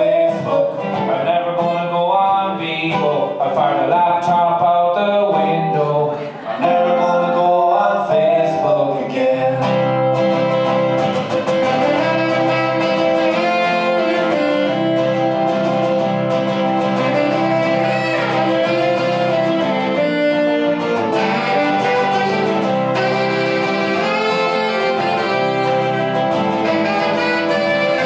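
Live acoustic duo: acoustic guitar strumming chords under a saxophone playing the melody, with long held notes from about ten seconds in.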